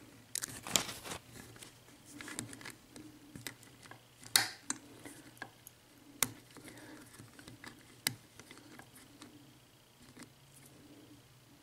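Light metallic clicks and scraping of a lock pick and tension wrench working the pins inside an Abus 72/40 six-pin padlock during single-pin picking, with a few sharper clicks spread through it.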